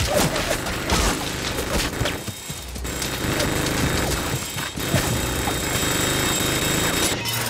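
Sustained rapid automatic gunfire from a rotary machine gun (minigun) in a film's sound mix, firing without a break and cutting off near the end.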